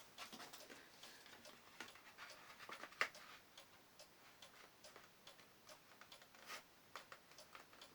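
Faint, scattered clicks and small scratches of a small packaged item being picked and worked open at its seal by hand, with one sharper click about three seconds in.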